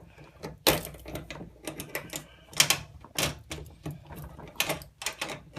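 Irregular sharp clicks and knocks, several a second with gaps between, from a threaded hose fitting being tightened by hand onto a washing machine's water inlet valve.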